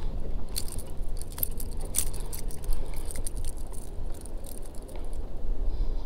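Wind rumbling on the microphone, with scattered light clicks and rattles from a crankbait and its hooks as the small fish hanging from it is handled.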